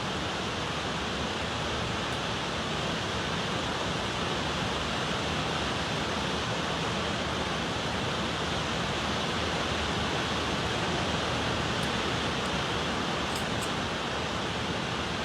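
Steady, even rushing noise at a constant level, with a few faint ticks near the end.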